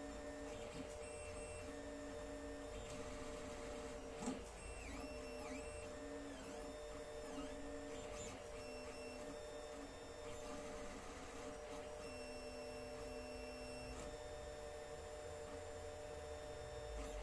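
Alfawise U10 3D printer printing: its stepper motors whine in tones that jump to new pitches every second or so, with some short swooping dips, as the head and bed move, over a steady hum. A single sharp click about four seconds in.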